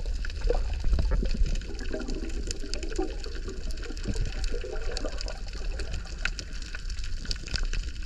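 Underwater sound through a submerged camera: a low rumble of moving water with scattered faint crackling clicks and some gurgling.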